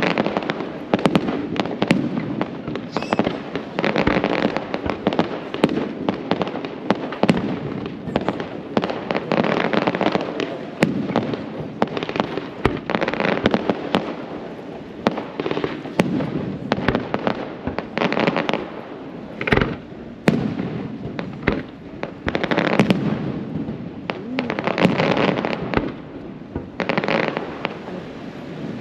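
Fireworks display: aerial shells bursting in a rapid, continuous run of sharp bangs, with noisy swells every few seconds.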